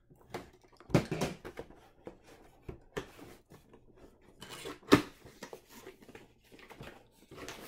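White cardboard box being opened by hand: irregular scrapes, rustles and knocks of cardboard as the tape and lid flaps are worked loose, the sharpest knock about five seconds in.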